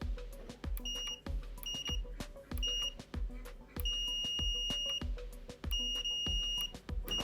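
Multimeter continuity beeper sounding as the Xbox One power button is tested and pressed: three short beeps, then two longer ones, each a steady high tone. The button tests good. Background music with a steady beat runs underneath.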